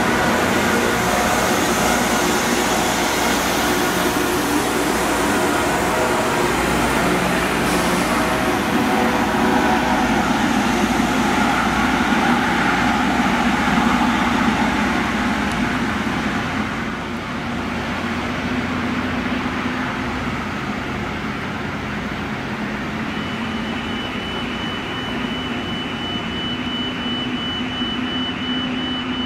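Loram RG-401 rail grinder passing close by with its grinding stones working the rail: a loud, harsh rushing noise that eases a little past the middle. About three-quarters of the way through, a steady high tone joins in.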